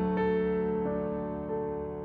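Slow, atmospheric solo piano: a held chord rings and slowly fades, with a few soft single notes added about a quarter second, one second and a second and a half in.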